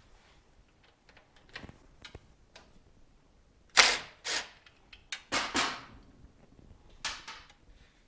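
Sharp metallic knocks and clanks of hand tools and parts during a motorcycle teardown: a loud knock about four seconds in, a quick run of knocks around five and a half seconds, and another near the end, with quieter clicks in between.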